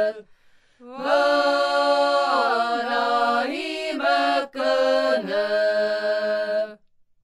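Seto leelo sung by a small women's choir, unaccompanied: several voices in harmony, with one high part (the killõ) held above the lower chorus. The singing breaks off just after the start, resumes about a second in, and the song ends shortly before the close.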